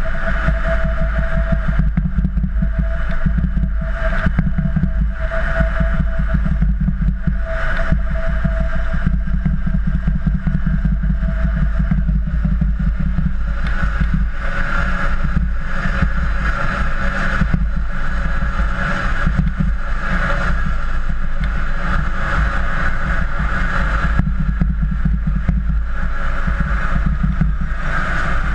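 Combine harvester running in the field while harvesting: a steady low diesel rumble with the threshing machinery's hum wavering over it.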